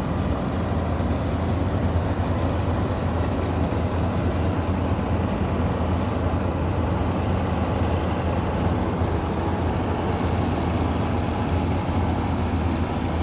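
Wheat combine harvester running steadily at work: a deep, constant engine hum under an even mechanical rush of the machinery.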